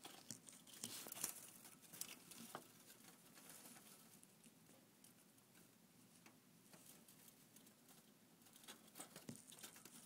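Faint pattering and ticking of wind-driven snow against window glass, denser in the first few seconds and again near the end.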